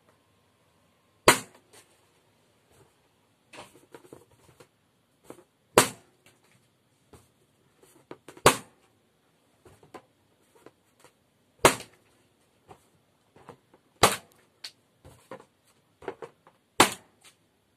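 Blue latex balloons popped one after another with a pin: six sharp bangs a few seconds apart, with quieter handling and rubbing of the balloons between them.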